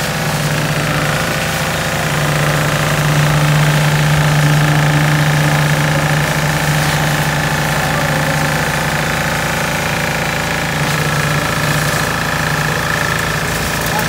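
Engine of concrete-pouring machinery running steadily with a constant low hum, no change in pitch.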